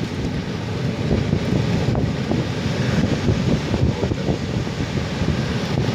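Wind buffeting the microphone: a steady, fluttering low noise.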